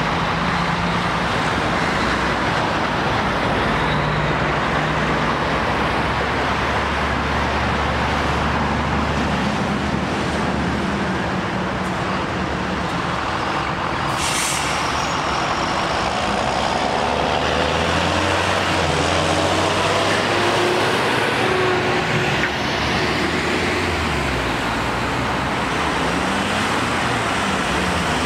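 Road traffic: a DAF XF lorry's diesel engine pulling round, then a farm tractor and a line of cars passing and accelerating away. A brief air-brake hiss comes about halfway through.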